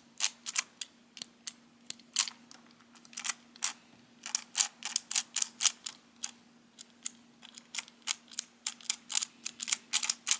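Rapid, irregular sharp plastic clicks, a few per second, from the spinning drill-horn mechanism of a small Rhydon action figure being worked by hand.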